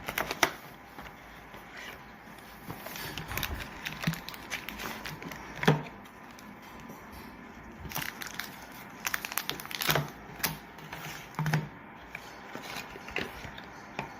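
Product packaging being handled and opened: scattered clicks and knocks with some crinkling.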